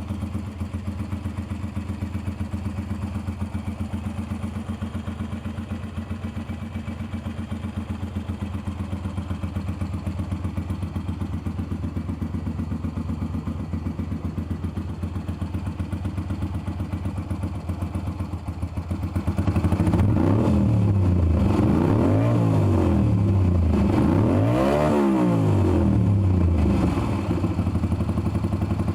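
Ducati motorcycle engine idling with a deep, steady rumble, then revved up and back down several times starting about two-thirds of the way in.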